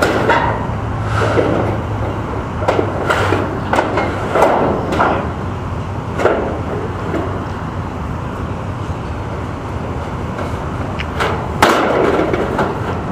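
Irregular knocks and clatter of work on a carport's roof panels and frame, with a sharper bang near the end, over a steady low hum.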